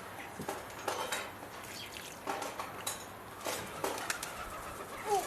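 Pebbles clicking and clattering against each other and the bird bath as they are lifted out: a series of separate knocks, several close together around the middle.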